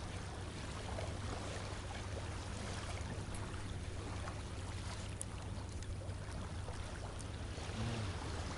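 Riverside ambience: a steady wash of water and wind with a low steady hum underneath, and a few faint clicks of forks on plates.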